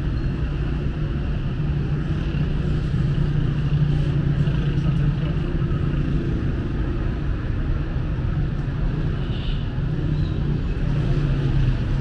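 Steady low rumble of city street traffic, running evenly with no sudden sounds.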